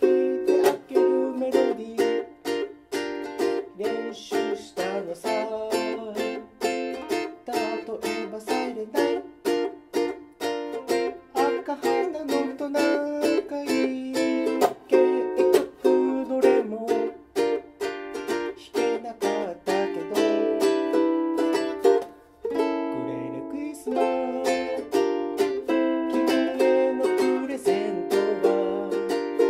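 Fender ukulele strummed in a steady rhythm, chording through a song in the key of F, with a brief break about three-quarters of the way through.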